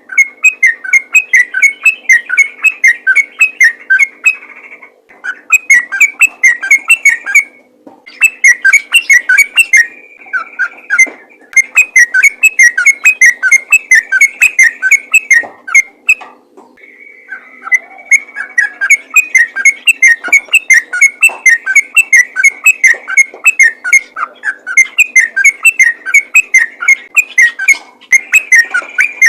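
Yellow-vented bulbul (trucukan) singing vigorously: long runs of quick, bubbly whistled notes in phrases several seconds long, broken by short pauses.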